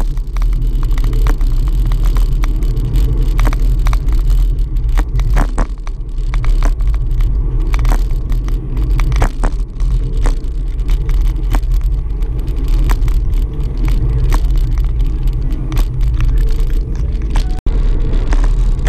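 Wind buffeting the microphone of a camera on a moving road bicycle, a loud, steady low rumble and hiss, with frequent small clicks and knocks over it. The sound cuts out for an instant near the end.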